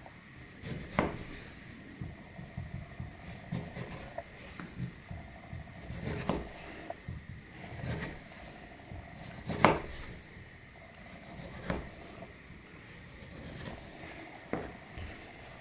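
A Maxace Amber 2S folding knife slicing fruit on a cutting board: a handful of scattered knocks as the blade meets the board, the loudest about ten seconds in, with faint rubbing and cutting sounds between.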